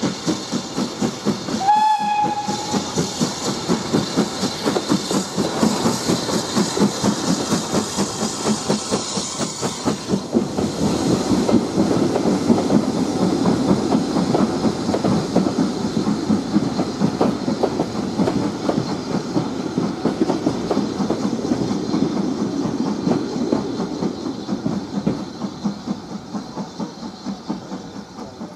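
BR Standard 4 2-6-4T steam tank locomotive passing with its train. It gives a short whistle about two seconds in, then there are steady exhaust beats and the clickety-clack of the coach wheels over the rail joints. The sound is loudest in the middle and fades near the end as the train goes by.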